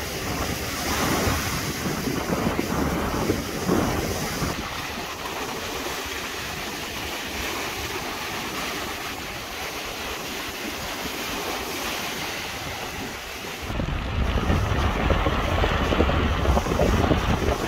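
Sea waves breaking and washing up the shore, with wind buffeting the microphone. The wind rumble grows heavier and louder near the end.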